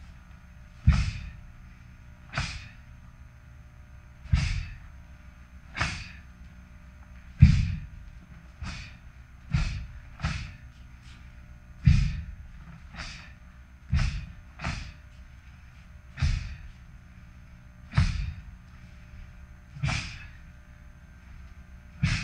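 A taekwondo practitioner's strikes and blocks through the pattern Do-San, each technique landing with a short, sharp snap. The snaps come about every one to two seconds, some in quick pairs.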